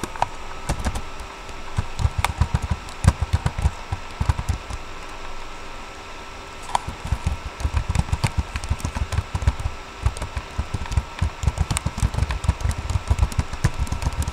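Typing on a computer keyboard: rapid keystrokes with dull thuds, in a short spell and then a longer run, over a faint steady electrical hum.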